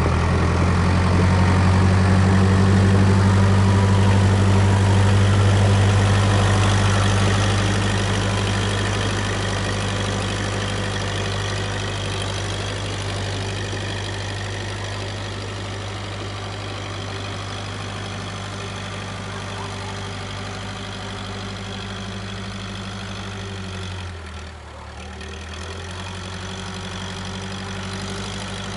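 Case 580K backhoe's four-cylinder diesel engine running steadily at an even pitch, growing fainter over the first dozen seconds, with a brief dip about 24 seconds in.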